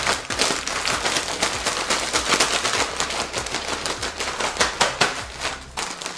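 Zip-top plastic bag being shaken with chicken wings and seasoned flour inside to coat them: a fast, continuous crinkling and rustling of the plastic that dies down near the end.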